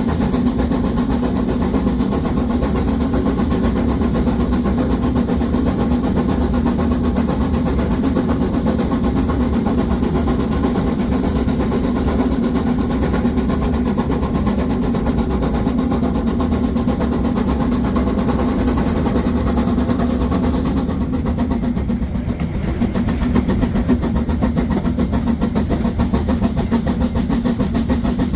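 Harz narrow-gauge 2-10-2 tank steam locomotive 99 7240-7 working hard up a 1:25 grade with a heavy seven-coach train, its exhaust beating in a continuous rapid rhythm.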